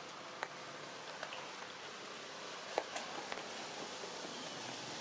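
Steady outdoor hiss with a few faint sharp clicks, one about half a second in and two or three close together around the middle.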